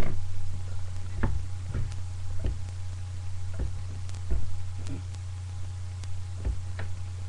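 Irregular soft knocks and taps, about eight spread over several seconds, from fingers tapping and handling a handheld phone, over a steady low hum.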